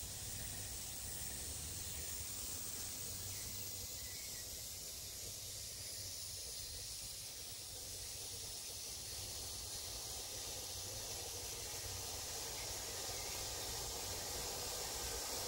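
Radio-controlled M41 Bulldog model tank running across grass: a steady hissing whir from its small drive motors, gearboxes and tracks, growing louder near the end as it comes closer.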